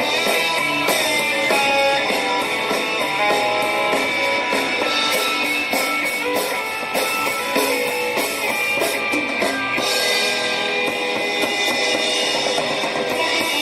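Guitar-led song with drums played back through a small portable Bluetooth speaker and picked up by the microphone, with little deep bass.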